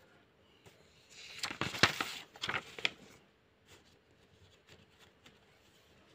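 A sheet of paper rustling and crackling as it is turned over, for about two seconds starting about a second in, with a few sharp crinkles; then only faint light ticks.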